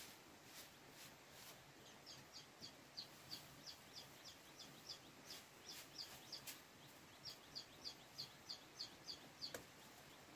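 Faint, repeated high chirps of a small bird, about three a second, with two soft clicks, one near the end.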